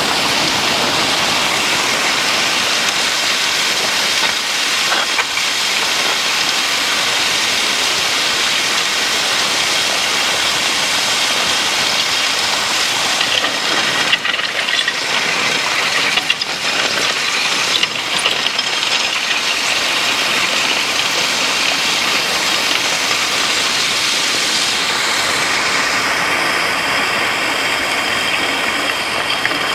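Steel tine harrow drawn by a horse team, its tines scraping and rattling through loose crusher-run gravel in a steady hiss.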